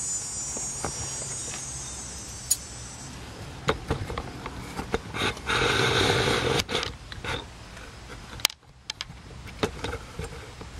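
Metal hand tools and brake parts being handled: scattered sharp clicks and clanks, with a louder scraping rattle lasting about a second and a half around the middle. A high thin buzz fades out in the first few seconds.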